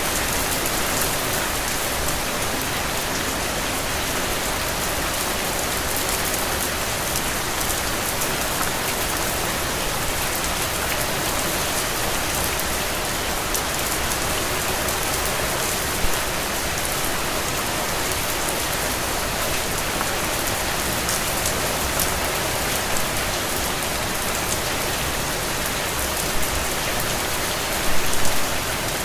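Steady rain falling, an even hiss of drops with a few brief louder drop hits, one about halfway through and a cluster near the end.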